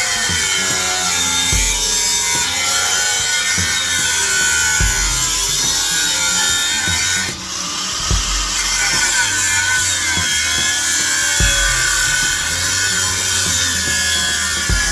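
Power saw cutting through the steel shell of a sealed refrigeration compressor, running continuously with a wavering, grating pitch and a brief letup about halfway through.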